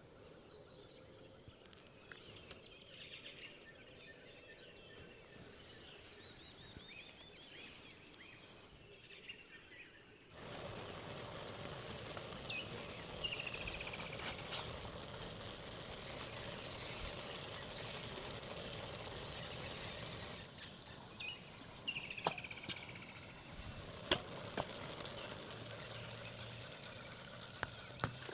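Birds calling in short, repeated falling chirps over a steady outdoor background hiss. The background noise steps up suddenly about ten seconds in, and a few sharp clicks come near the end.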